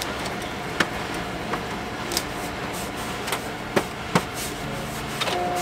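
A few scattered light clicks and taps as blue tape is handled and pressed onto the plastic casing of a printer, over a steady background hum.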